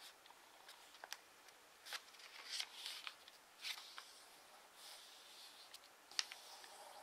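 Faint rustling and crackling of a sheet of TANT origami paper being folded and pressed flat by hand, with a few sharp crisp clicks as creases are made. The loudest rustles come between about two and four seconds in, with a sharp crackle near six seconds.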